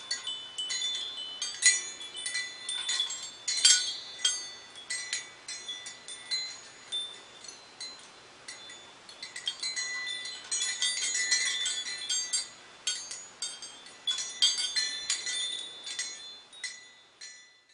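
Handmade crystal suncatcher wind chime jingling: its small metal bells and Czech crystal beads strike one another irregularly, each strike ringing briefly at a high pitch. The strikes thin out in the middle, come thick again a little later, and die away at the end.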